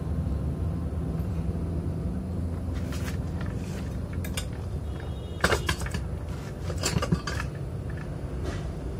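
Steel parts of a homemade coil-spring compressor clinking and knocking together as they are handled and fitted: a few sharp metal clinks, most of them between five and a half and seven and a half seconds in, over a steady low hum.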